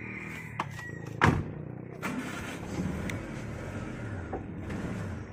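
Car running along the road, a steady rumble and road noise, with one sharp thump a little over a second in.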